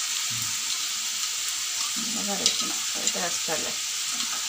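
Fish curry base of ground spice paste and tamarind water sizzling in the pan on the stove: a steady hiss with a couple of sharp ticks around the middle.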